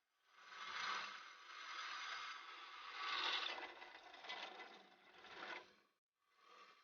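Scraping and rattling of a metal mechanism, continuous for about six seconds with two louder surges, then stopping, with a short scrape near the end.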